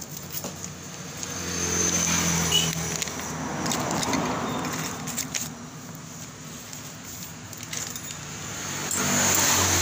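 A motor vehicle engine swells up and fades away as it passes, then another approaches near the end. A few light metallic clinks come in between, from scooter CVT parts being handled.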